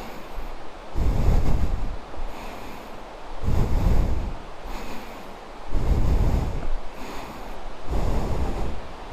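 A person's heavy breathing puffing across the microphone, one breath about every two seconds, over a steady background hiss.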